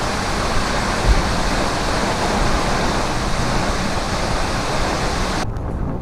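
Waterfall pouring down into a rock gorge, a loud steady rush of falling water. About five and a half seconds in it cuts off abruptly to a low, gusty rumble of wind on the microphone.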